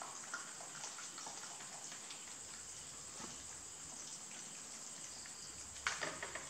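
Two rabbits chewing soft soursop fruit: small, quick, irregular munching clicks over a steady background hiss, with a louder cluster of clicks about six seconds in.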